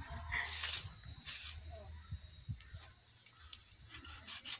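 Insects chirring steadily in one continuous high-pitched drone, with a couple of brief faint rustles about half a second and a second and a half in.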